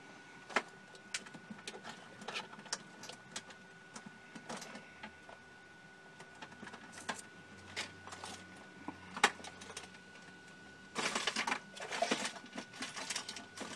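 Scattered light clicks and small knocks of wires, connectors and small parts being handled inside an opened show laser, over a faint steady whine. From about eleven seconds in the handling turns into a denser, louder rustling clatter.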